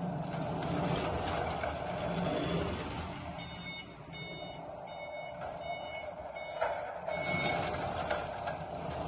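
Heavy electric pallet truck driving, its drive running with a steady hum, while its warning beeper sounds a string of short high beeps, about one every two-thirds of a second, for roughly four seconds in the middle.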